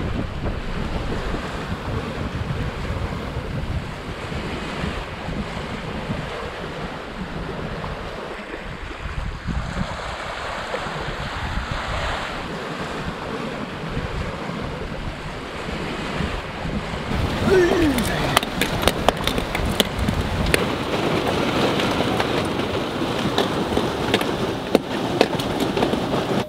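Wind buffeting the microphone and water rushing along a sailboat's hull under sail. About two-thirds of the way through, the rush turns brighter, with scattered sharp ticks and splashes.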